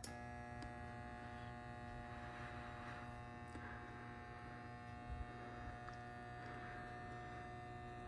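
Schumacher MC1281 battery charger's transformer giving a faint, steady hum of several held tones while it charges a car battery.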